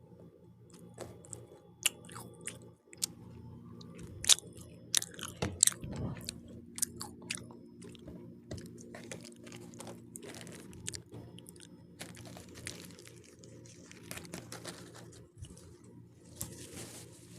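Close-miked biting and chewing of crunchy pizza crust, with a run of sharp crunches, loudest a few seconds in, over a steady low hum.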